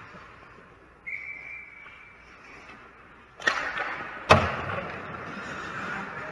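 Ice hockey play at the net: a brief steady high tone about a second in, then skates scraping the ice from about three and a half seconds, and a single sharp crack of the puck being hit or stopped about a second later, the loudest sound.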